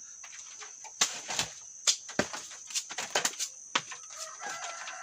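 Machete blade chopping and knocking at a freshly pulled root clump, about eight sharp knocks at uneven intervals as the soil and small roots are cut off. A chicken clucks near the end.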